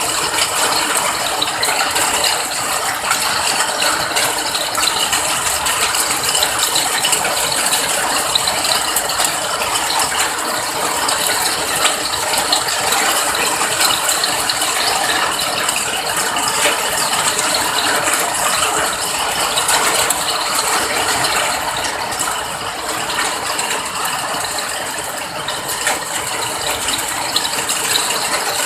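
Steady rain falling, a dense, even crackle of countless small drop impacts that neither builds nor fades.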